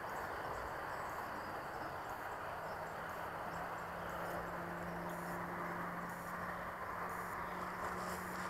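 Distant radio-controlled model airplane's motor and propeller, a faint steady hum over a soft outdoor hiss. The hum becomes steadier a few seconds in.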